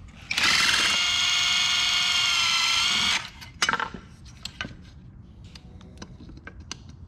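Cordless drill driver with a Phillips bit spinning for about three seconds, a steady motor whine as it backs a screw out of a headlight mount. It stops suddenly and is followed by a few light clicks.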